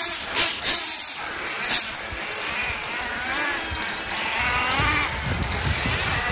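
Radio-controlled car's motor revving, its pitch sliding up and down with the throttle, after a few loud rustling bursts in the first two seconds; a low rumble builds in the second half.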